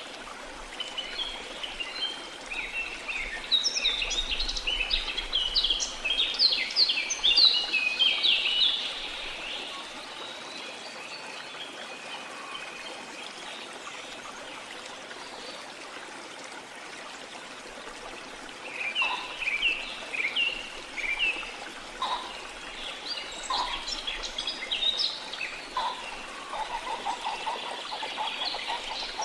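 Small birds chirping and twittering in two busy bouts, the first from about two seconds in to about nine, the second starting about two-thirds of the way through, over a steady wash of sea water.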